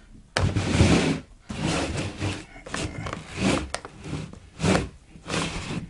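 A cardboard firework cake box being handled and turned on a tabletop: a series of irregular rubbing and scraping sounds as it slides and is gripped.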